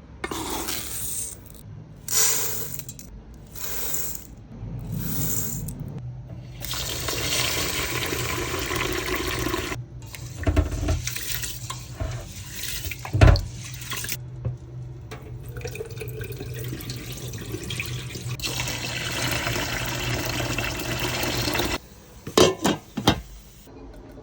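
Water running from a kitchen tap into a sink in several spells, some short and some several seconds long, with splashing. There is one loud sharp knock about halfway through and a few quicker knocks near the end.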